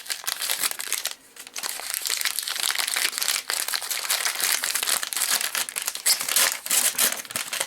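Paper-wrapped packets of 7.62x54R cartridges being pulled out of an opened spam can, the stiff wrapping paper crinkling and rustling continuously, with a brief lull a little over a second in.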